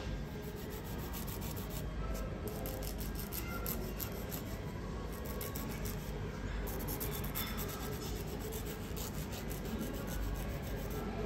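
Nail file rubbing back and forth across a fingernail in quick, repeated strokes.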